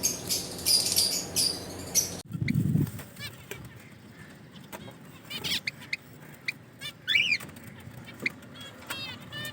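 Ring-necked parakeets in an aviary: for about the first two seconds, loud wing-flapping and high chatter; then, after an abrupt change, scattered short chirping calls, with a quick run of calls near the end.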